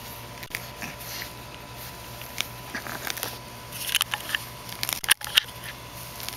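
Boston Terrier puppy tearing at and chewing grass: a string of small crisp crunches and clicks, irregular at first and coming thick and fast in the second half.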